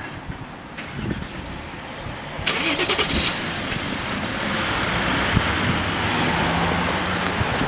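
Car traffic moving off across a level crossing: engines and tyre noise, with a car passing close about two and a half seconds in, after which the traffic noise stays steady and louder.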